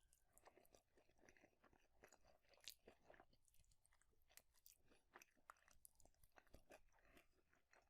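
Faint close-up chewing of fast food, with a steady run of small wet mouth clicks and crunches.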